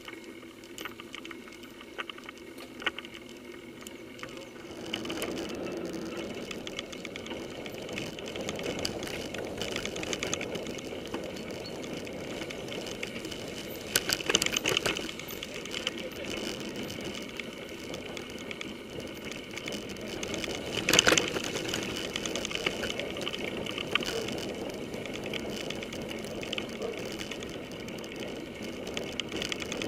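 Mountain bike rolling over a dirt forest track, heard from a camera mounted on its handlebars: a steady rush of tyre noise that grows louder after a few seconds. Rattles and knocks come over bumps, the loudest a little before halfway and again about two-thirds of the way through.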